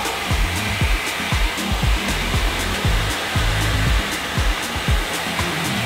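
Pressure washer wand spraying water onto a car's rear bumper and trunk lid, a steady hiss of spray. Background music with a steady beat plays over it.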